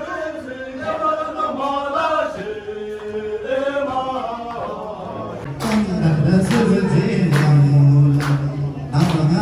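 A group of voices chanting together in unison. About halfway through, a loud deep held note joins, with steady beats under it.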